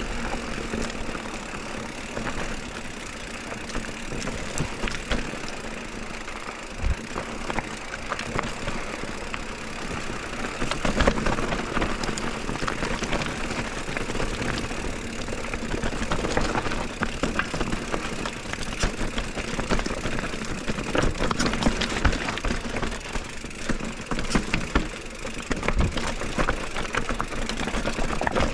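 Mountain bike ridden over a rough, stony trail: steady rolling tyre noise with frequent clicks, knocks and rattles throughout.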